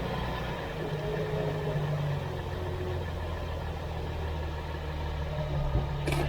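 Jeep XJ driving, with a steady low engine and drivetrain hum and road noise. A single sharp knock comes near the end.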